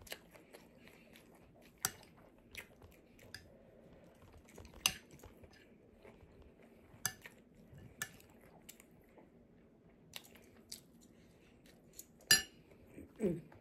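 Close-up chewing of fried rice, with a metal spoon now and then clicking and scraping against a glass baking dish in sharp, separate clicks every second or two.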